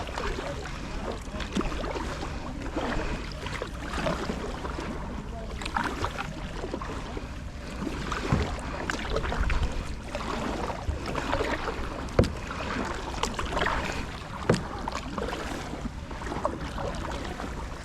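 Kayak paddling on calm water: paddle blades splashing and dripping in irregular strokes, with a few sharp knocks along the way.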